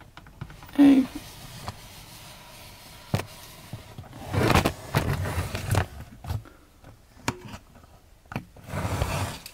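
Handling noise as a camera is picked up and moved: rustling, with scattered sharp clicks and knocks, and a short vocal sound about a second in.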